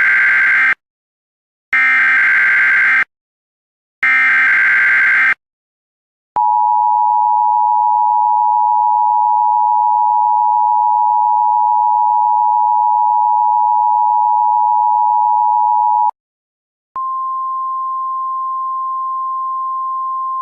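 Emergency Alert System tones. The tail of one SAME header data burst and two more full bursts of harsh digital screech, each about a second long and about a second apart. Then, about six seconds in, the steady two-tone EAS attention signal for about ten seconds, and after a short pause a single, slightly higher steady tone: the National Weather Service 1050 Hz warning alarm tone.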